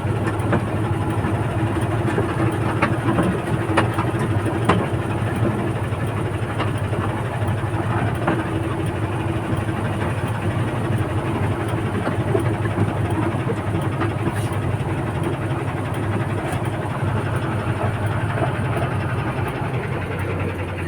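Heavy diesel engine running steadily, with scattered knocks and rattles over the constant hum.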